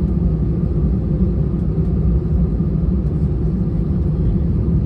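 Steady low rumble heard inside the cabin of an Airbus A320-200 on the ground just after landing, from its engines and its rolling along the taxiway.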